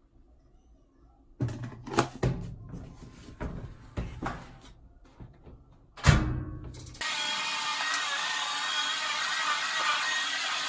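Plastic clatter and knocks as a detergent jug and cap are handled at a top-loading washing machine, ending in one loud knock as the washer lid is shut about six seconds in. About a second later a steady rushing noise starts abruptly and holds.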